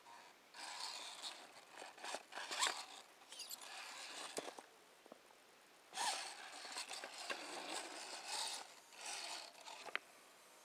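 Electric Axial RC rock crawler working over rocks: its drivetrain whirs while the tyres scrape and click on stone. It comes in two spells of a few seconds each, with a quiet gap in between.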